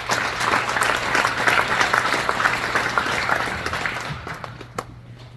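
A room full of people applauding, a dense patter of many hands clapping that swells up, holds, and fades away about four seconds in.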